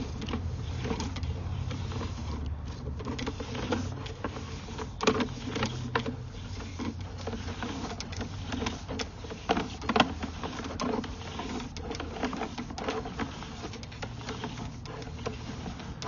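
Sewer inspection camera being fed through a plastic sewer line: a steady low hum with irregular clicks and knocks as the push cable and camera head travel down the pipe.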